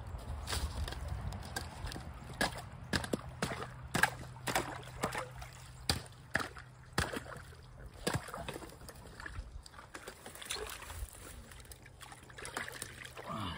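Water sloshing and splashing as hands and wader-clad legs work in a shallow creek, with many sharp cracks and clinks of thin skim ice breaking.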